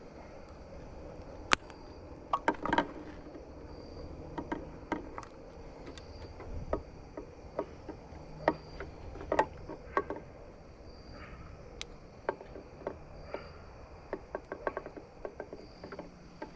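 Scattered sharp clicks and taps of hands handling plastic connectors and wiring at a truck's side mirror. A faint, short, high insect chirp, likely a cricket, repeats about once a second behind them.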